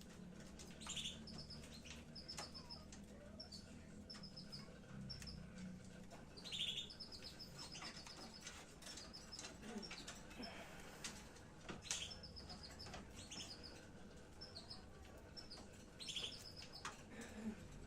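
Lovebirds chirping: short strings of quick, high chirps repeated every second or two, with a few faint clicks between them.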